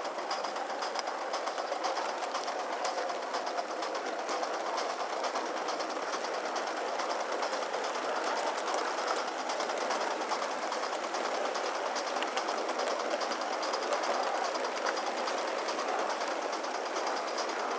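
Gauge 1 live-steam model of a Midland Railway Tilbury tank engine running, with a rapid, steady chuff of exhaust steam and the clatter of its wheels and coaches on the track.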